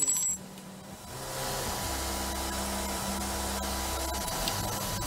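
A steady hiss of static with a low hum and a faint steady tone beneath it, fading in about a second in.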